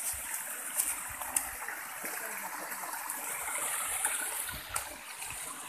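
A small stream cascading over rocks into a pool, a steady rush of falling water, with a few brief sharp clicks over it.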